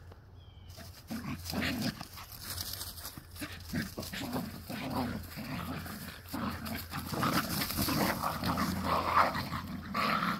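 Yorkshire terriers playing rough, making dog noises throughout, with scuffling and knocking mixed in.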